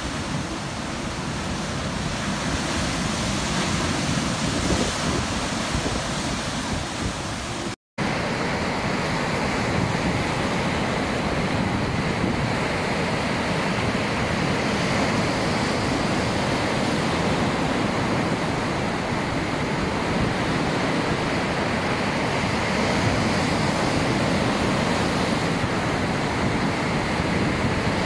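Ocean surf: waves breaking and washing in as a steady rushing noise. A brief silence about eight seconds in separates two stretches of surf.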